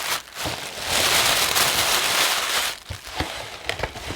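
Paper and packaging crinkling and rustling as stationery is handled, loudest through the first couple of seconds, followed by a few light knocks near the end.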